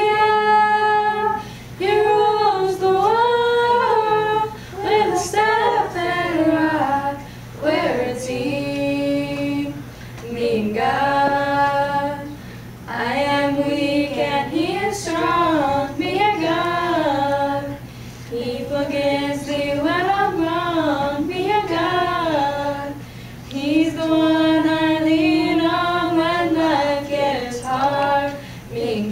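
Small church youth choir of mixed voices singing a cappella, in sung phrases of a few seconds with short breaths between.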